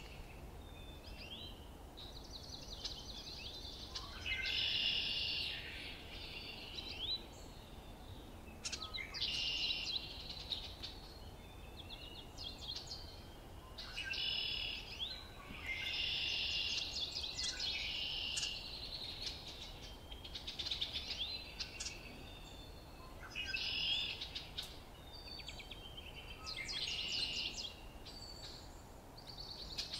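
Songbirds singing in a run of short, chirpy phrases, one every couple of seconds, over a faint steady low rumble.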